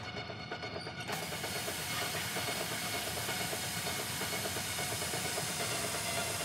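Pressurised gas hissing steadily as it is released from a handheld canister through a rod into a ceiling ventilation grille. The hiss starts about a second in.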